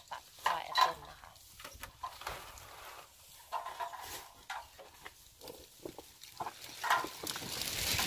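Scattered light knocks and clicks from plastic harvest crates being handled, with a short steady-pitched squeak or hum about three and a half seconds in.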